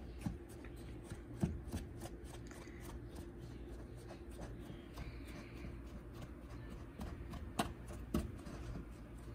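Small wooden spoon stirring and scraping flour in a stainless steel mixing bowl while butter is worked into it: quiet, irregular soft taps and scrapes, with a few sharper clicks against the bowl, one about a second and a half in and two near the end.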